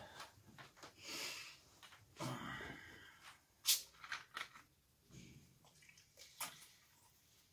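Handling noise from a plastic water bottle: rustling, then sharp clicks and crackles of the cap and thin plastic about halfway in, followed by quieter sounds of drinking.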